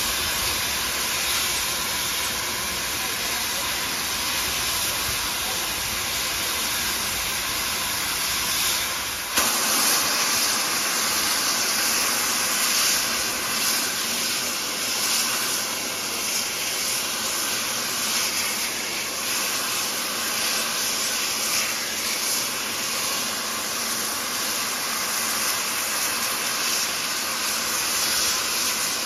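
Steam locomotive standing at a platform with steam hissing steadily. About nine seconds in, a low rumble underneath drops away and the hiss turns louder and sharper.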